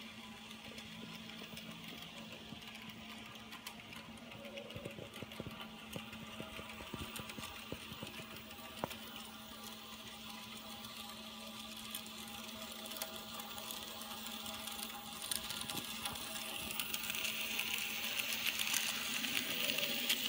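Bachmann N scale model steam locomotive running on its track: a steady whir from the small electric motor and gearing, with light clicks from the wheels on the rails. It gets louder over the last few seconds as the train runs past close by.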